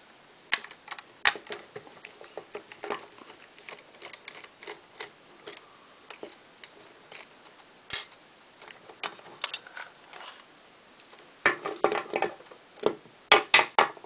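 Scattered light clicks and ticks of a screwdriver backing small screws out of a plastic toy backhoe loader model and setting them down on a wooden table. Near the end comes a quick run of louder plastic clatters as the model's body comes off its chassis.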